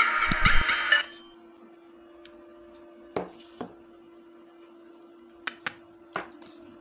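Music playing through a speaker driven by a homemade TTC5200 transistor amplifier cuts off about a second in. A steady faint hum and a few light clicks and knocks follow.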